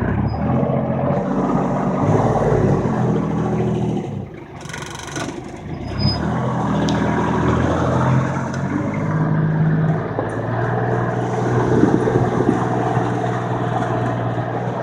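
A vehicle engine running under way, pulling and speeding up, with road noise beneath it. Its level drops briefly about four seconds in, then picks up again.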